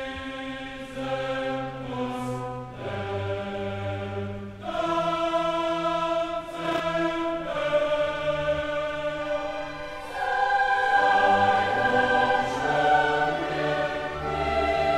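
Background music: a choir singing slow held chords that swell louder about ten seconds in.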